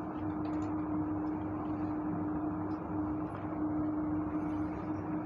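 Steady background noise with a constant low hum, and no clear writing sounds above it.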